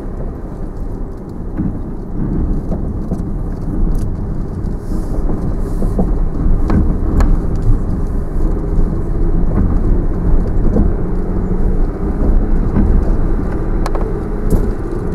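Land Rover Discovery 4 crawling in low range over a rutted forest track, heard from inside the cabin: a steady low rumble of engine and tyres, with scattered knocks and clicks as it rides over the ruts. It grows a little louder after a few seconds.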